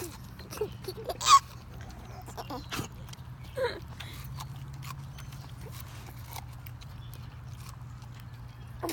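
Dog gnawing kernels off a corn cob, a string of sharp crunching clicks, mixed with a baby's short squealing laughs, the loudest about a second in. A steady low hum runs underneath.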